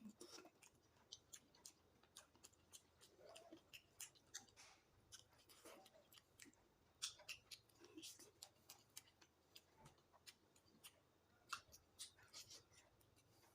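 Faint close-up eating sounds: chewing and mouth clicks while eating roast chicken, irregular sharp clicks several a second.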